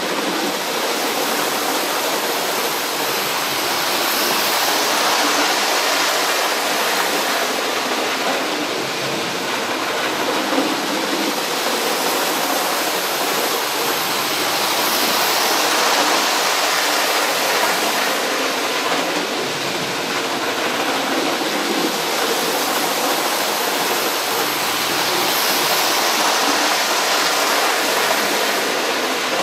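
Hornby OO-gauge HST model train, newly fitted for DCC, running on the layout track: a steady rolling noise from its motor and wheels on the rails, growing louder several times as it comes round past the camera.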